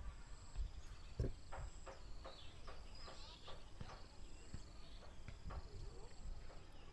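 Insects trilling steadily with a thin high buzz, over the soft footsteps of someone walking.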